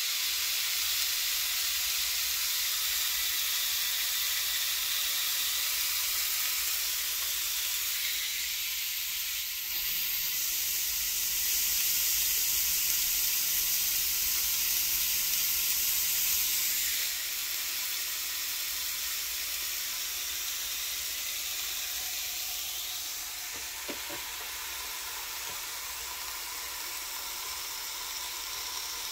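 Frozen hamburger patties sizzling on an electric contact grill (griddle/panini press), a steady frying hiss that swells louder for several seconds in the middle, then settles back.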